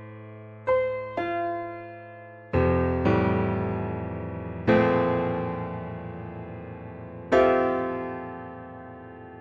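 Slow, gentle solo piano music: sparse single notes and chords, each struck and left to ring out and fade before the next.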